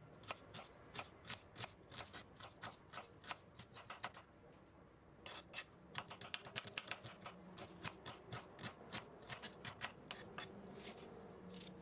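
Kitchen knife dicing an onion on a bamboo cutting board: a faint run of quick light taps, about three a second, that stops for about a second roughly four seconds in and then resumes.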